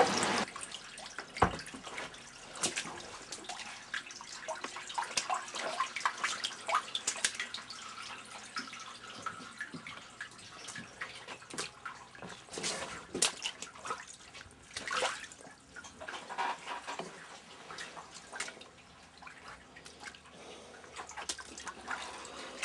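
Water dripping and trickling into standing floodwater on a basement floor: irregular drips and small splashes. A single sharp knock about a second and a half in.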